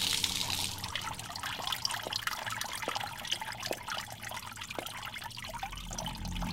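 Water running from an outdoor wall tap and splashing onto paving, strongest in the first second and then thinning to a fainter trickle, with scattered faint drips.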